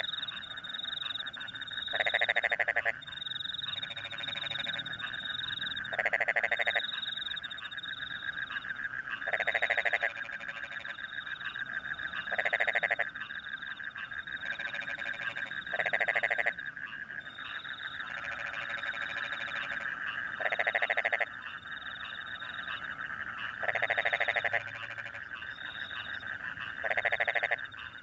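Rice-field frogs calling in a chorus after rain, with a louder croaking call about every three to four seconds over a continuous fast trill. Crickets chirp in the background.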